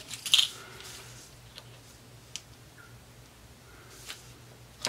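Plastic sewing clips rattling as a hand rummages in a small basket of them, followed by a few scattered light clicks.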